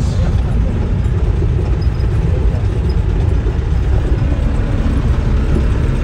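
Steady low rumble of a van on the move: road and wind noise heard from inside the vehicle.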